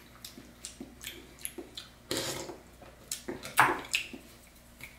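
Close eating sounds: wet chewing and mouth smacking on a mouthful of broth-moistened pad thai noodles, with short clicks of a spoon and chopsticks against ceramic bowls and a longer wet sound about two seconds in.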